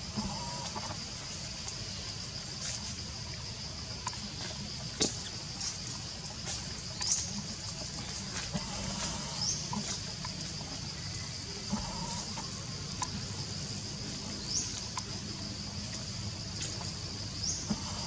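Steady high-pitched insect drone, cricket- or cicada-like, with a short high rising chirp every few seconds and a few faint clicks.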